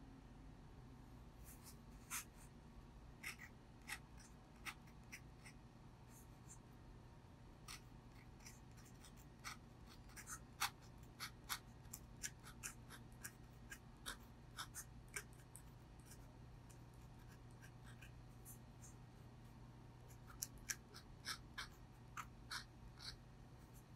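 Steel Brause Steno dip pen nib scratching across paper in handwriting: short, irregular scratches and ticks, with a lull of a few seconds a little past the middle, over a faint steady low hum.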